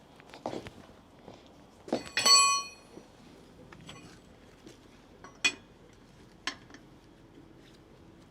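Steel lug wrench clanking against the wheel's lug nuts: a few knocks, then a ringing metal clang about two seconds in, the loudest, and two sharp clinks later.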